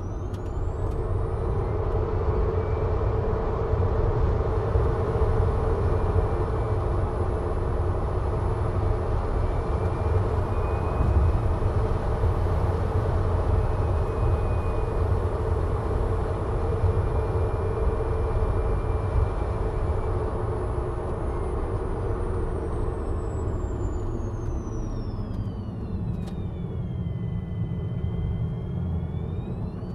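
Tesla Model 3 Performance on the move: steady tyre and road noise with a low rumble, and a thin, high electric-motor whine. About two-thirds of the way through the whine sinks in pitch as the car slows, then climbs again near the end as it speeds up.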